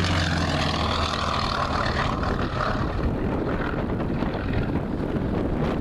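Sukhoi Su-31's nine-cylinder radial engine and propeller droning at a distance as the plane climbs in aerobatics, with a low steady hum that fades away about a second in.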